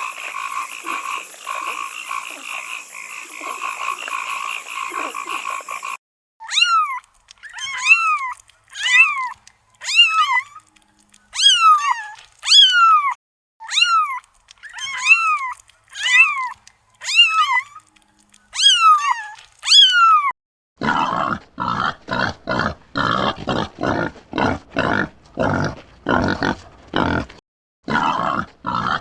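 Animal sounds in three parts: a steady shrill drone, then about fifteen short calls that fall in pitch, then a fast run of rough pulses about three a second.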